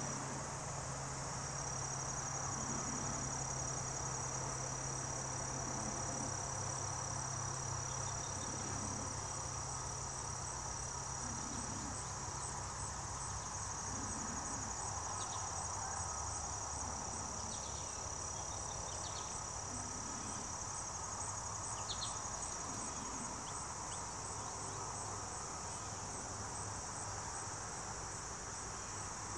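A steady high-pitched insect trill, finely pulsed, with a faint low hum underneath that fades after about twelve seconds. A few brief faint chirps come through midway.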